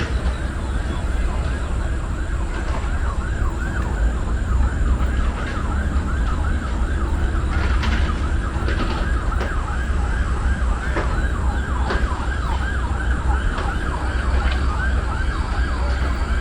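A siren in a fast yelp pattern, rising and falling about three times a second, over a steady low rumble.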